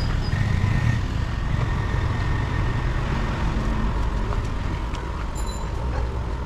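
Steady low rumble of motor vehicle engines.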